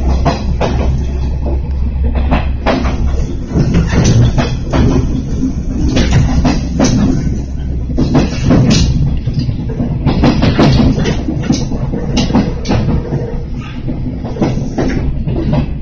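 Music with a drum beat, about two strokes a second, over a low steady rumble.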